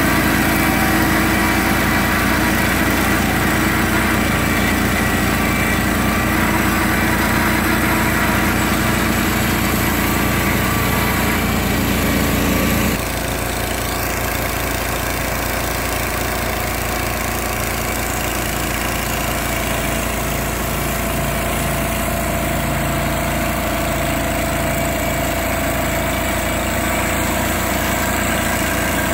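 Engine of a Norwood HD36 hydraulic portable bandsaw mill running steadily as the band blade cuts through a large log. About halfway the sound changes abruptly to a slightly quieter, lower engine hum.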